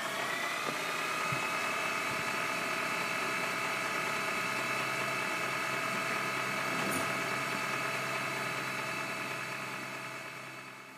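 Steady electronic tone with many overtones. It finishes a slight upward glide in about the first second, then holds one pitch and fades out near the end.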